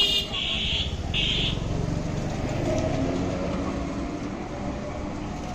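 Street traffic: an engine rumbling past close by, with two short high-pitched beeps in the first second and a half.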